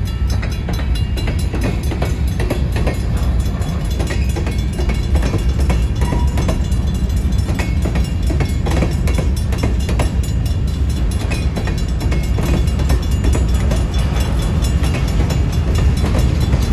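Freight train of Union Pacific covered hopper cars rolling past, a steady low rumble with rapid clicking and clatter from the wheels going over the rail joints.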